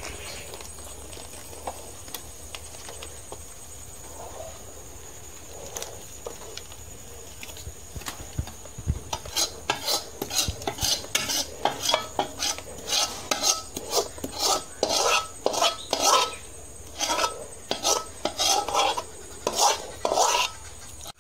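Metal spatula scraping thick, sticky carrot burfi mixture out of a metal pan into a tray, with metal rubbing on metal. The first half has only occasional light clicks. From the middle onward comes a fast run of louder scrapes, one to two a second.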